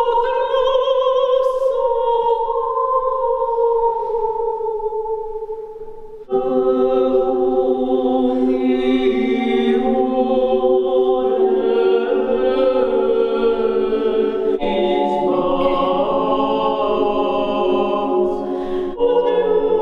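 Women's vocal ensemble singing unaccompanied sacred chant in a stone hall. A single voice holds a long, slightly falling note, then about six seconds in several voices join in sustained harmony, moving to new chords twice near the end.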